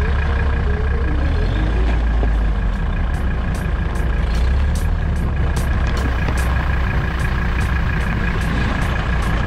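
Engine of a 1985 Toyota pickup running at low speed as the truck crawls over a snow pile, a deep steady rumble with a thin, steady high whine above it.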